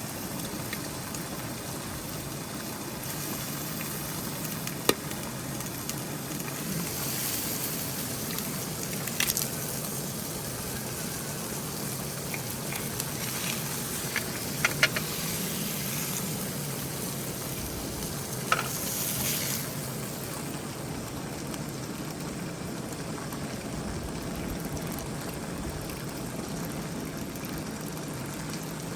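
Hamburger patties sizzling steadily in a frying pan, with a few sharp clicks of a cooking utensil.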